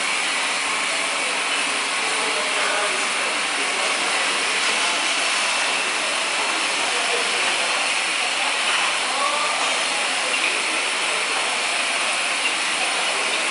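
Rotary glass-bottle filling machine running: a steady, even hiss of machinery with no distinct knocks or rhythm.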